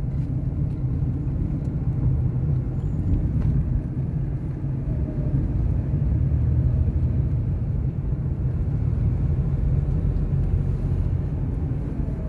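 Steady low rumble of a vehicle driving along a road.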